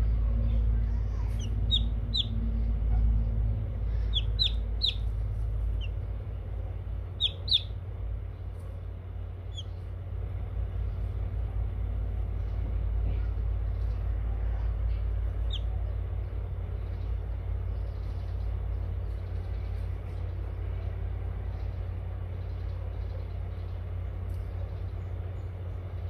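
Chicks peeping in short, high, falling chirps, several in quick succession in the first third and a few scattered ones later, over a steady low hum.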